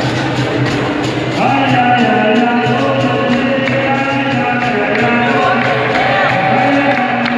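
Capoeira roda music: a group sings the chorus over a steady percussion rhythm with an atabaque drum. The massed voices swell in about a second and a half in.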